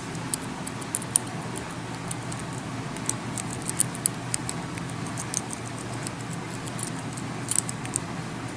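Irregular light metallic clicks and ticks of a half-diamond pick working the pins of a Master Lock 540DPF dimple padlock under a tension bar, while the picker works toward a false set. The clicks come thickest from about three seconds in to near the end.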